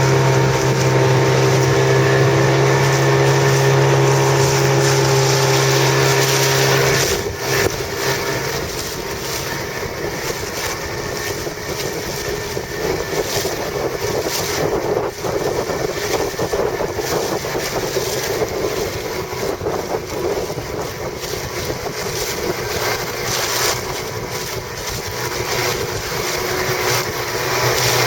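A steady engine hum stops about seven seconds in and comes back near the end; in between, a rough, uneven rushing noise of wind on the microphone.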